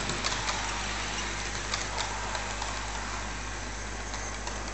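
OO gauge model Class 170 diesel unit running into the station: a steady rolling whir with sharp clicks of wheels over rail joints, the clicks thinning out and the sound easing as it slows.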